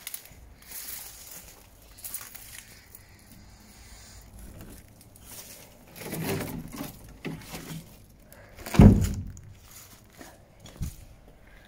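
Footsteps crunching over rubble and broken floor tiles, with scattered knocks and one loud, low thump about nine seconds in.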